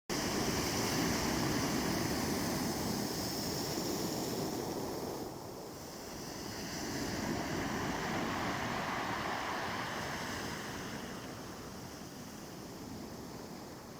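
Sea waves breaking and washing on the shore, swelling and ebbing: a wave surges in about seven seconds in after a lull, then fades away.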